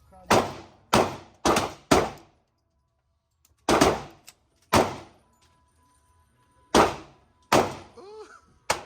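Handgun shots at an indoor range: nine sharp reports in uneven groups (four quick shots, then two, then three), each with a short echoing tail.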